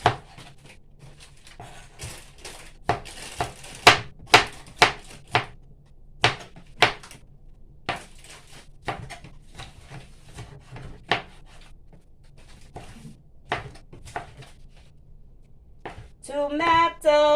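Knife slicing tomatoes: a run of sharp, irregular taps about every half second. Near the end a voice starts singing in drawn-out tones.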